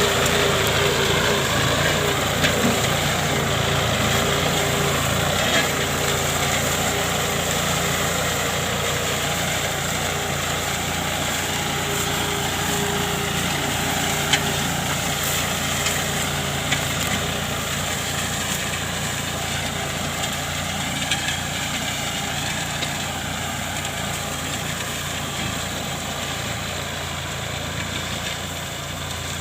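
John Deere 5050D tractor's diesel engine running steadily as it works the field, gradually getting fainter.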